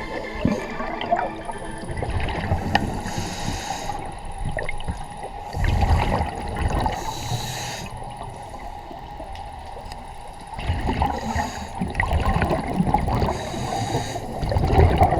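Scuba diver breathing through a regulator underwater: hissing inhalations alternate with gurgling rushes of exhaled bubbles about every four to five seconds.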